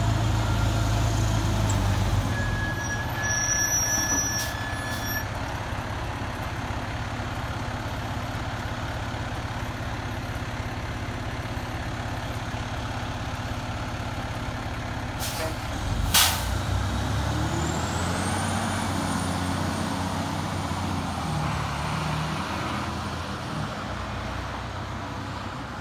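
Fire department tower ladder truck's diesel engine running as it rolls past, with a short air-brake hiss about sixteen seconds in. The engine note rises again afterwards as the truck pulls away.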